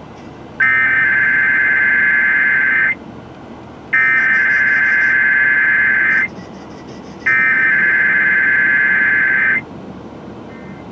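Emergency Alert System digital SAME data bursts from a radio station's Required Weekly Test: three loud, raspy electronic screeches of about two seconds each, about a second apart.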